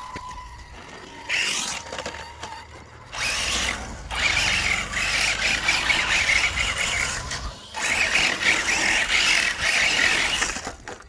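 Traxxas TRX-4 Ford scale crawler with a 2300kv brushless system, its motor and drivetrain whining under throttle as the tyres scrabble over dirt and gravel: a short burst, then two long ones.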